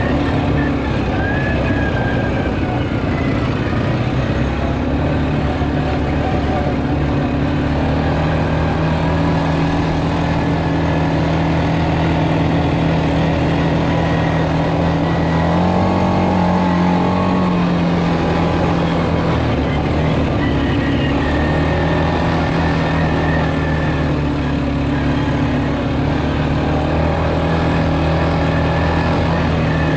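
Sport ATV's engine running steadily as it rides along a dirt trail, heard from the rider's seat; the engine note rises a little about halfway through, dips briefly, then settles again.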